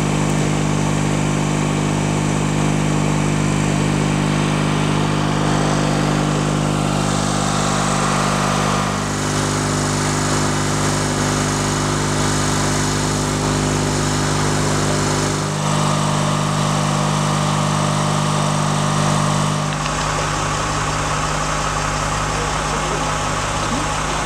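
Steady hum of idling vehicle engines, one even pitched drone whose mix of tones changes abruptly three times.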